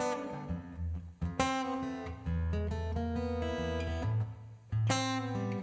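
Steel-string acoustic guitar playing solo: fingerpicked chords with short pauses, and a strongly struck full chord about one and a half seconds in and again near the end.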